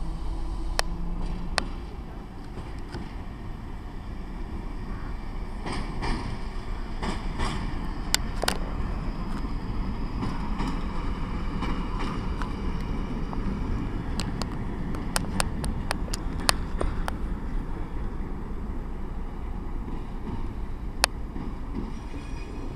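Diesel locomotive of ČD class 754 running with a steady low engine rumble, with scattered sharp clicks over it.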